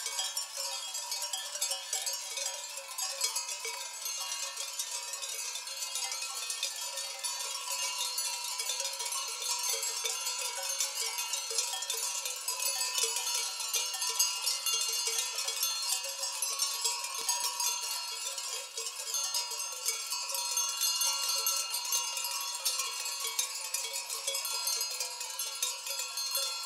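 Many bells on a grazing flock of sheep ringing without pause, a dense clinking of overlapping tones.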